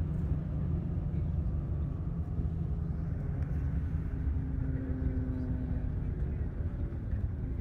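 Steady low rumble of engine and tyre noise heard from inside a moving road vehicle, with a faint hum over it.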